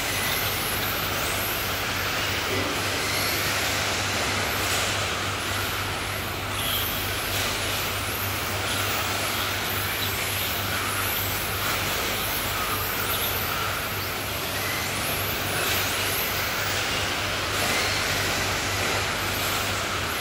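Brushless electric 1/10-scale RC touring cars racing: high-pitched motor whines rise and fall again and again as the cars accelerate and pass, over tyre noise and a steady low hum.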